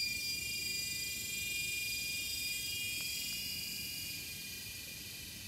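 A chorus of tropical forest insects: a steady, high-pitched whine made of several pitches at once, fading slightly toward the end.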